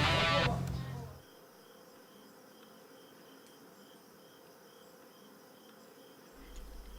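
Background rock music with guitar fades out in the first second, leaving faint crickets chirping in an even rhythm, about two or three chirps a second.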